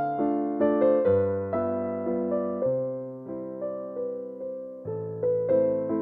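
Background piano music: a melody of struck notes, about two a second, each fading away, over lower notes that change every second or so.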